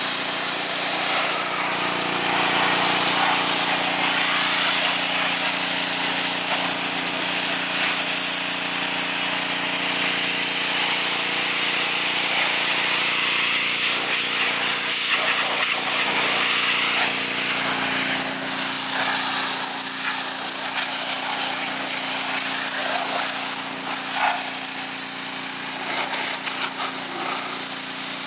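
A 3,100 PSI pressure washer running steadily: the constant hum of its motor and pump under the hiss of the high-pressure jet spraying the car's paint, windows and rocker panel. The spray hiss rises and falls a little as the wand is swept along the body.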